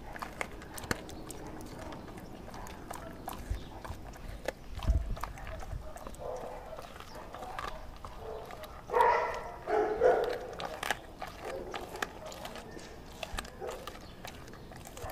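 A Doberman eating raw food, wet chewing and smacking with many sharp clicks of teeth and crunching, and a louder stretch of smacking about nine to ten seconds in.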